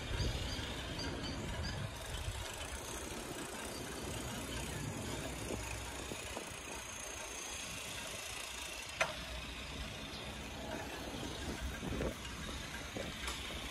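Steady rushing noise of a bicycle being ridden on asphalt: wind on the microphone and tyres rolling. A sharp click sounds about nine seconds in and a softer knock near the end.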